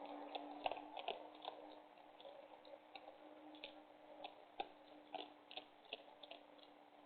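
Irregular soft clicks and crunches of a raccoon and an opossum chewing food, several a second and busiest in the first couple of seconds, over a faint steady hum.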